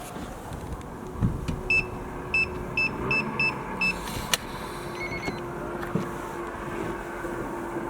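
Electronic keypad of a digital door lock beeping six times as a code is punched in, then a sharp click and a short, lower two-note beep as the lock releases.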